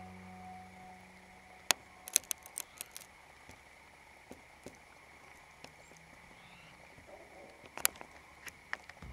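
The tail of background music fades out, leaving a quiet stretch with a faint steady high tone. Scattered sharp clicks and ticks come through it: a cluster about two to three seconds in and a few more near the end.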